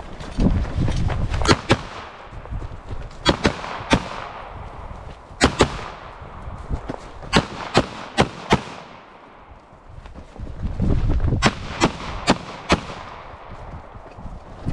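Pistol shots fired in quick pairs and short strings, about twenty in all, with pauses between strings. A low rumble of movement comes between some strings as the shooter moves between positions.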